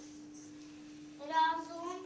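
A high voice draws out a single syllable for under a second, starting about halfway in and rising slightly in pitch at the end. A faint steady hum runs underneath.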